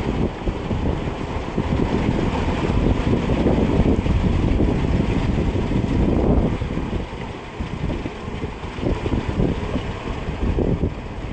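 The 5.7 L V8 of a 1997 Chevrolet Cheyenne pickup idling with the hood up, with gusts of wind buffeting the microphone. The wind eases somewhat about two-thirds of the way through.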